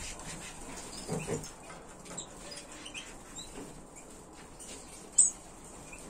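Small songbirds in an aviary giving short, scattered high chirps, with a couple of soft low thumps about a second in. A single sharp high chirp a little after five seconds is the loudest sound.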